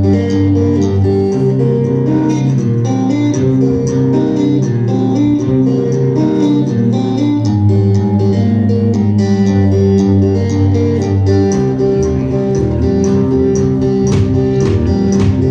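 A band playing a slow, calm song live, led by guitar over a bass line, without singing.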